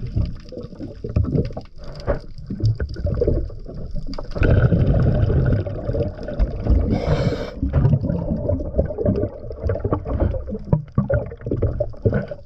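Underwater sound of a scuba diver breathing through a regulator, with exhaled bubbles gurgling and water churning in irregular surges; a brighter rush of bubbles comes about halfway through.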